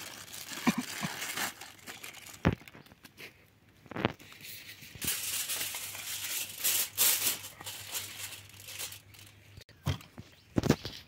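Aluminium foil crinkling and rustling as a sheet is handled and smoothed flat by hand, in irregular bursts with a few soft thumps.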